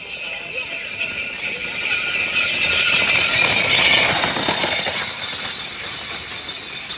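A racing pair of water buffalo pulling a wooden-wheeled mekepung cart gallops past close by, their bells jangling with hoofbeats and the rattle of the cart. It builds to its loudest about four seconds in as they pass, then fades away.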